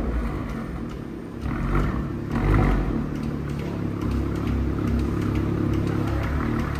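Audi RS5's 2.9-litre twin-turbo V6 through an AWE Tuning non-resonated cat-back exhaust, just after start-up. The start-up flare dies down, the engine swells briefly twice, then it settles into a steady idle.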